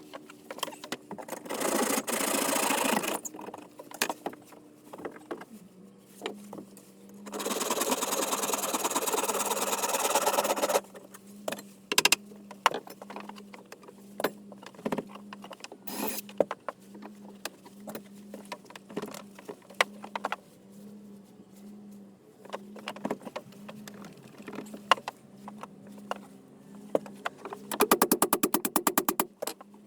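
Power saw cutting through the wooden tenons of a boat's doghouse, running in two bursts, one of about two seconds and one of about three and a half, with knocks and clicks of wood being worked in between and a quick rattling run near the end.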